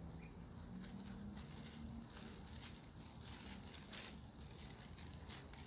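Clear plastic packaging bag rustling and crinkling faintly as it is handled and pulled open, in short irregular rustles.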